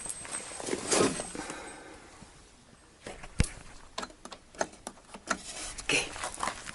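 Close handling noises: a rustle about a second in, then scattered light clicks and knocks as a hand works around the model boat's stern and rudder.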